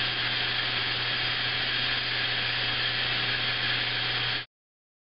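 Band saw running steadily as it cuts through a wooden board, its blade dull, so the cut goes slowly. The sound cuts off abruptly about four and a half seconds in.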